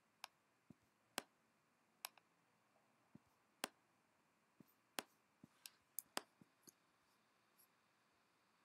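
Scattered faint clicks, about a dozen at irregular intervals, from clicking and dragging with a computer pointer; otherwise near silence.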